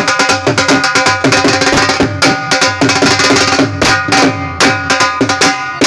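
Dhol drum beaten in a fast, dense jhumar rhythm, with a been reed pipe playing steady held notes over it.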